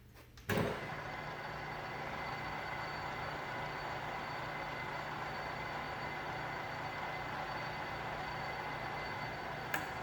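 1977 Mori Seiki MH-3000 engine lathe starting with a sudden clunk about half a second in, then its 15 HP drive running steadily under power with a thin high whine over a low hum. A short click near the end.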